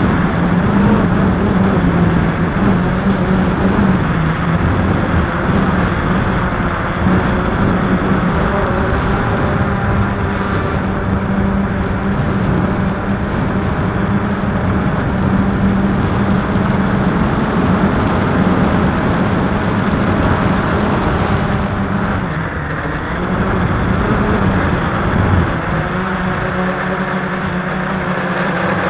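Multirotor drone's motors and propellers humming steadily, heard from the camera it carries. The pitch and level dip briefly about three-quarters of the way through, then settle again.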